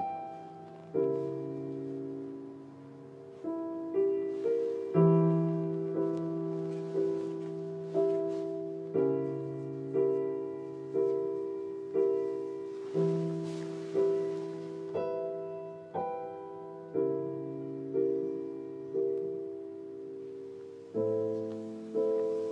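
Slow, gentle solo piano music: notes and chords struck about once a second, each ringing and fading away.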